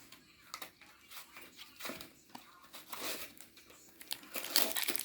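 Foil Pokémon booster pack and cards being handled, giving irregular crinkling, rustling and small clicks that get louder near the end.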